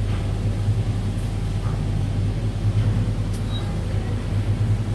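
Steady low droning hum of kitchen equipment, with a few faint light ticks over it.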